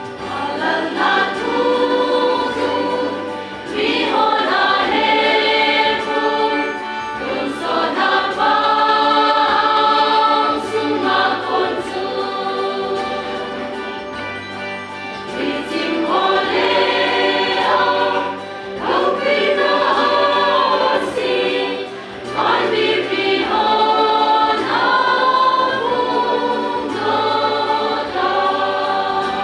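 Mixed church choir of women and men singing a Christmas song in parts, in sustained sung phrases with short breaks between them and a softer passage about halfway through.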